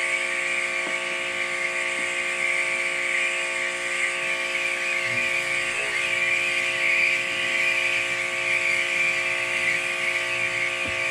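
Electric pressure washer running while spraying: a steady high-pitched whine from its motor and pump over the hiss of the spray. The speaker calls it a high-pitched, horrible noise.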